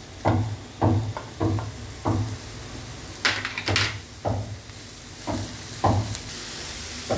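Shredded cabbage being tipped from a steel bowl into a hot kadai: a run of dull knocks of bowl and hands against the pan, then a rustling scrape as the cabbage is stirred and tossed with a spatula, over a faint sizzle of frying.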